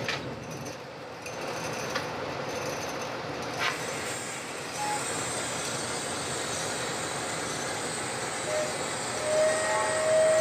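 Steady rushing noise of a glass lathe at work, with a hand torch's flame burning against the spinning glass tubes. A few clicks come in the first few seconds, and a faint high whine comes in near the end.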